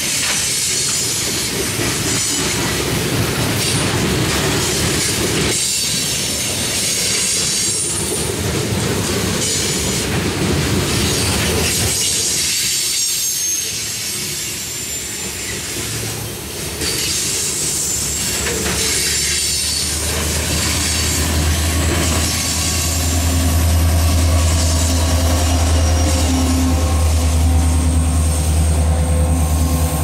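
Loaded covered hopper cars of a freight train rolling past, with wheel squeal and clickety-clack over the rail joints. About two-thirds of the way through, a steady, louder low engine drone comes in and holds: the diesel of the rear distributed-power locomotive, a CP SD70ACU, passing.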